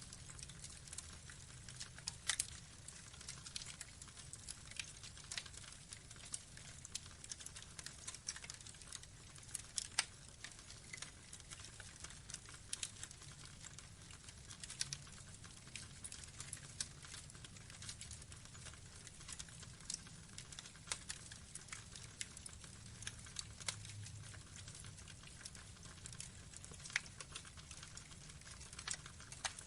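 Burning wood logs crackling: irregular sharp pops and snaps, a few louder than the rest, over a low steady rumble.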